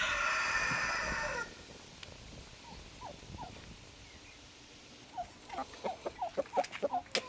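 A rooster crowing, the long held end of the crow dropping away about a second and a half in. After a quiet stretch, chickens cluck in short, quick notes through the last two seconds.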